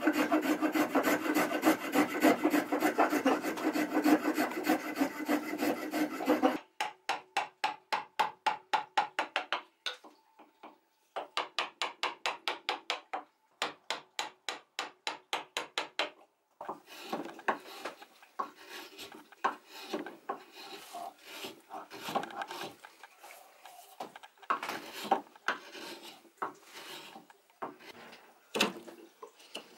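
Edge tools cutting oak, a brass spokeshave and then a bench chisel shaving down a spoon blank. For about the first half the cuts come as fast, even strokes, about five a second, in runs with short gaps. After that they turn slower and irregular: separate paring cuts.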